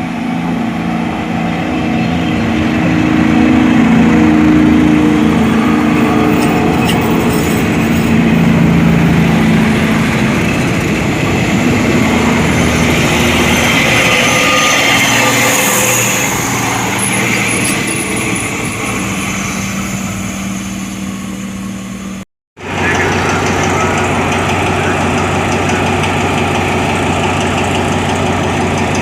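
Diesel locomotive engine running with a deep, steady throb that shifts in pitch over the first part. After a short break about two-thirds of the way through, it idles steadily.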